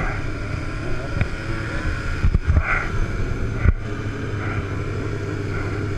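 Motorcycle engine running steadily, with wind on the microphone and a couple of sharp knocks, one about two and a half seconds in and one nearer four seconds.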